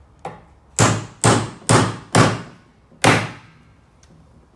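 Hammer driving a nail through recycled deck boards: one light setting tap, then five hard blows about half a second apart, with a slightly longer pause before the last.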